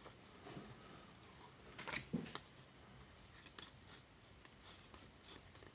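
Faint flicks and rustles of baseball cards being slid off a stack by hand, with two slightly louder card snaps about two seconds in.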